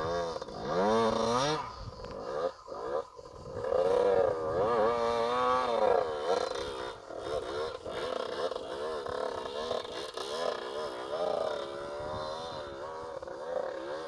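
Yamaha YZ125 two-stroke dirt bike engine revving hard on a steep grassy climb, heard from a distance. Its pitch rises in the first seconds, then wavers up and down with the throttle.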